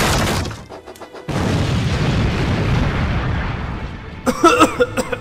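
An explosion sound effect: a thud at the start, then a big sudden boom about a second in that dies away slowly over about three seconds. A voice cries out near the end.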